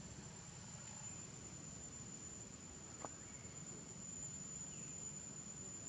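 Faint outdoor ambience with a steady high-pitched insect drone, and a single soft click about halfway through.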